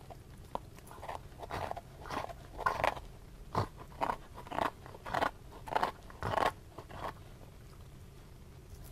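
A dog gnawing a fresh beef bone: a run of short crunching bites, its teeth grating on the bone about twice a second, dying away near the end.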